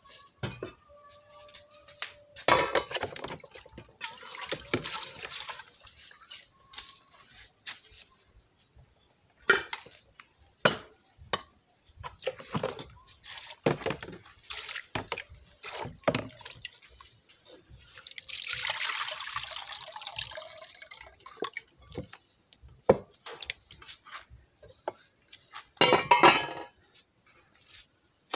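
Water splashing and pouring in two spells of a few seconds, with scattered knocks and clinks of cooking pots and utensils throughout and a louder clatter near the end.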